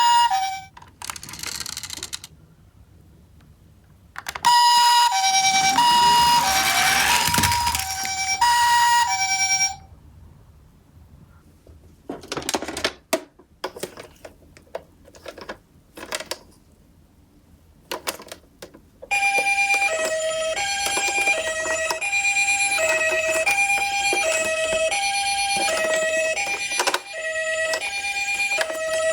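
Electronic two-tone "pee-po" ambulance sirens from toy ambulance minicars, sounding in spells. One plays briefly at the start and again for about five seconds starting near four seconds in. A lower, faster two-tone siren starts about two-thirds of the way through and runs on. Between the spells come scattered light clicks and knocks of the toy cars.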